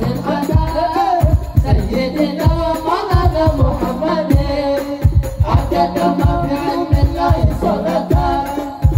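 Two men singing an Arabic devotional syair into microphones over a PA, accompanied by hadroh-style percussion: frame drums and deep drum strokes in a steady repeating rhythm.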